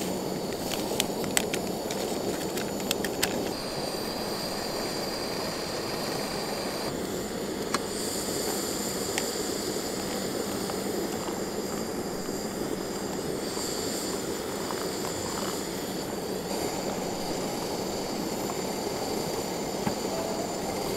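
Wood fire burning: a steady rushing of flames with scattered sharp crackles, most of them in the first few seconds.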